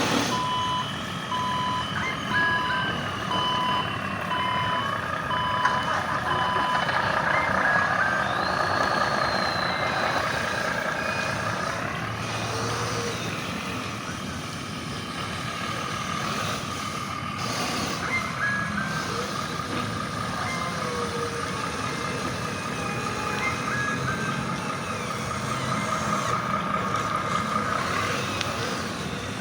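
Sound modules of radio-controlled model trucks playing a simulated diesel engine running throughout, with an electronic two-tone reversing beep that stops about seven seconds in.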